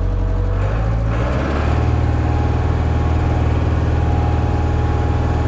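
International 685XL tractor's four-cylinder diesel engine heard from inside the cab, picking up revs about a second in as the tractor sets off in reverse, then running steadily under load.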